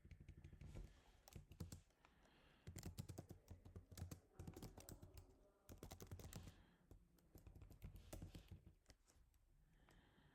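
Faint typing on a computer keyboard: quick runs of key clicks in several bursts, with short pauses between them.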